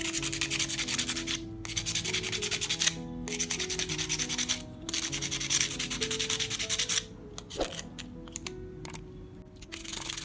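Sandpaper rubbed rapidly back and forth over a steam vaporizer's metal electrode strip, scraping off rust and corrosion, in four runs of strokes with short pauses between them, stopping about seven seconds in.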